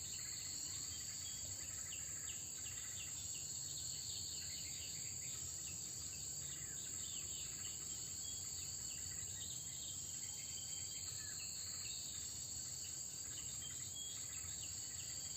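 Steady high-pitched drone of crickets or other insects, with many short, high chirps from small birds scattered throughout.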